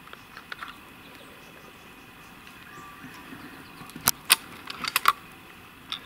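A quick run of sharp clicks and clinks about four to five seconds in, loud against a quiet background of movement in the scrub.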